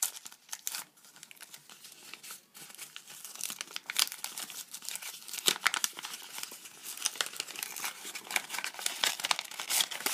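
A taped-shut paper card pack being pulled open by hand: paper crinkling and rustling with irregular crackles and some tearing, busier from about four seconds in.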